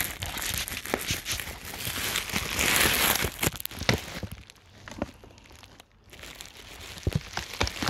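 Bubble wrap crinkling and rustling as it is handled, loudest about three seconds in, followed by a few scattered sharp clicks and knocks of handling.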